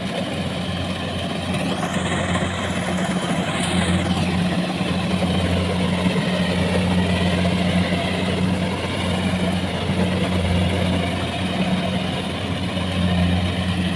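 Rice harvesting machine's engine running steadily with a constant low hum and mechanical clatter.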